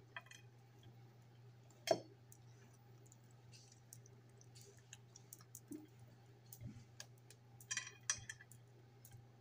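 Light clicks and taps from hands working a raw whole chicken in a glass baking dish, tucking seasoning under the pierced skin: one sharper click about two seconds in and a short crackly patch near eight seconds, over a steady low hum.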